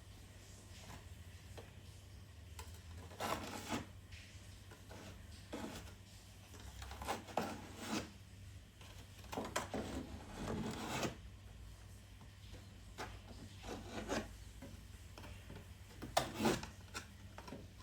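Scraping strokes of hand work on a surface, coming in short groups every couple of seconds with pauses between, over a low steady hum.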